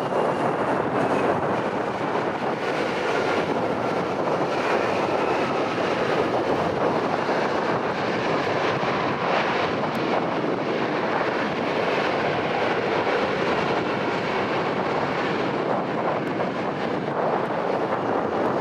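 Aircraft engine noise under heavy wind buffeting the microphone. Faint whining tones drift slowly in pitch during the first half, over a steady rushing noise.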